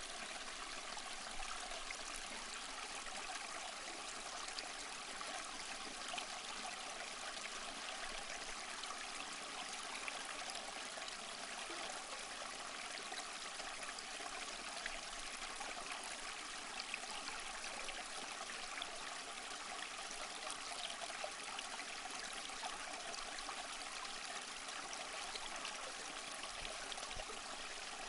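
Small stream flowing, a steady, even rush of water with a fine splashing texture.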